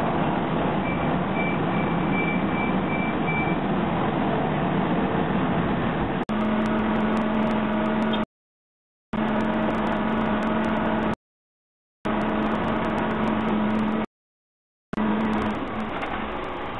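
Steady construction-site noise with a loud rushing haze. About six seconds in a steady machine hum sets in. After that the whole sound drops out completely for under a second roughly every three seconds.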